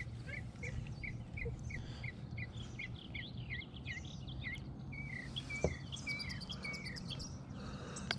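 A songbird singing a long run of short, evenly repeated whistled notes, about three or four a second, then a few longer slurred notes. There is a single light knock about five and a half seconds in.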